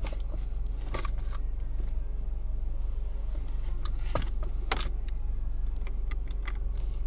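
Small metal nuts clicking and tapping a few times by hand as 10mm nuts are pre-threaded onto the center-console studs, over a steady low hum.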